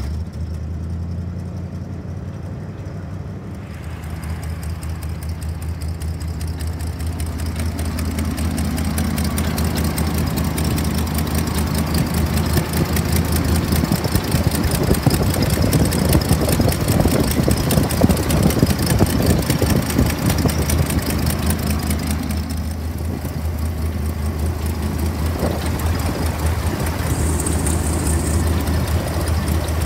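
1979 Chevrolet C70 truck's gasoline V8 idling steadily, heard up close at the open engine bay.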